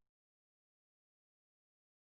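Digital silence: the soundtrack is blank.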